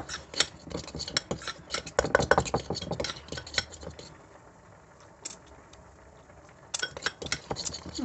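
Cutlery clinking and scraping against a bowl while a soft mixture is stirred and mashed: quick, irregular clicks for about four seconds, a pause, then a few more clinks near the end.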